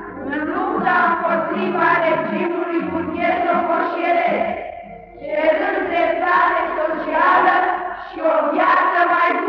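Singing as the film's soundtrack: sung phrases with short breaks about five seconds in and again just after eight seconds.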